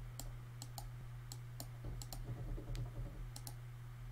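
Faint, irregular clicking at the computer, about ten sharp clicks in four seconds, over a steady low hum.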